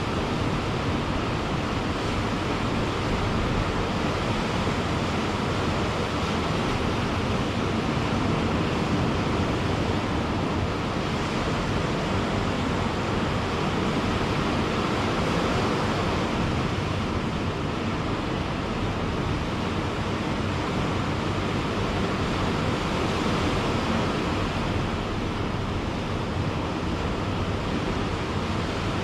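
Ocean surf on a beach: a steady rushing wash of waves with only slight swells in loudness and no distinct single crashes.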